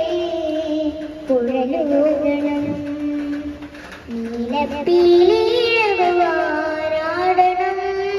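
A young girl singing a Malayalam film song solo, holding long notes. About five seconds in she sings louder, with a winding, ornamented phrase.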